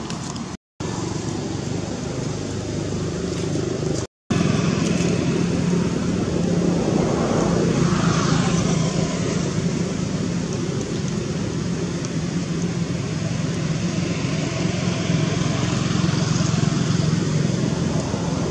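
Steady outdoor background noise with a faint low hum, broken twice in the first few seconds by brief dropouts to silence where the audio cuts.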